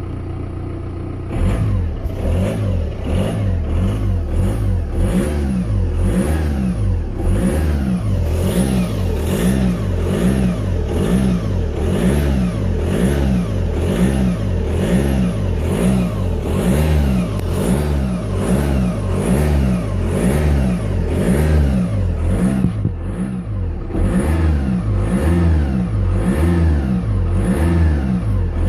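Audi A4 B7's 2.0 TDI four-cylinder turbodiesel running, with a strange noise that rises and falls in pitch about one and a half times a second and a high-pitched pulsing in step with it. The noise has been there since the oil pump and timing belt were replaced, and the owner wonders whether it is turbo whine.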